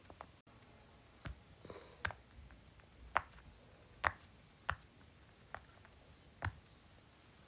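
Fidget toys being handled: a string of about seven sharp, irregularly spaced clicks and taps. The loudest come a little after three and four seconds in.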